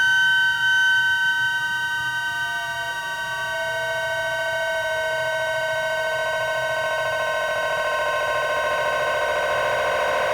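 Modular synthesizer playing held drone tones. A lower tone glides down about two to four seconds in, then swells with a fast wobble toward the end.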